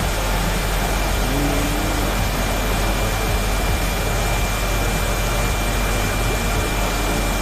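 Steady running noise of a prawn pond's aeration machinery: a constant low hum under an even hiss of churned water, with a thin, unchanging high whine.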